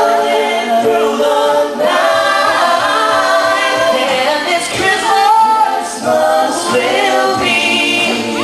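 A group of male voices singing in close harmony, a cappella, with held notes.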